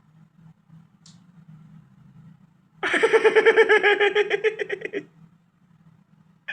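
A cartoon character's quavering, laugh-like vocal sound, one loud stretch of about two seconds with a rapid even pulse, starting about three seconds in over a faint low hum.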